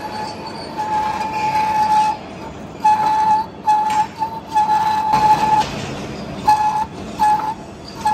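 Metal cutting on a vertical turret lathe: the cutting tool squeals with a high steady tone that starts and stops about half a dozen times, over the running machine.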